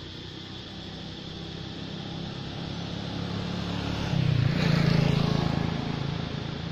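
A motorbike-drawn tuk-tuk passing along the road, its engine growing louder, loudest about four to five seconds in, then fading.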